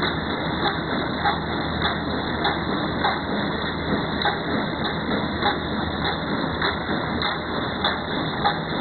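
Automatic spork packing machine running: a steady mechanical whir with a regular clack a little under twice a second as it cycles.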